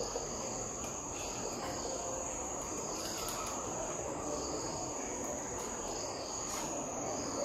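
A marker pen writes on a whiteboard in a few faint, short strokes, over a steady high-pitched whine in the background.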